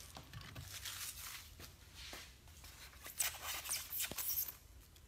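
Scratchy rustling and squeaking of a foam packing tray as diecast model parts are worked out of it, with a few light clicks.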